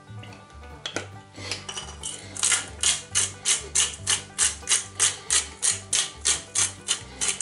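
Glass hand pepper mill grinding peppercorns: from about two seconds in, a gritty crunching rasp comes with each twist, about three times a second, over background music.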